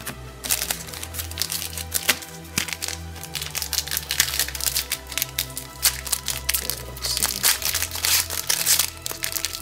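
Foil trading-card pack wrapper crinkling and crackling as it is handled, a dense run of crackles starting about half a second in, over background music.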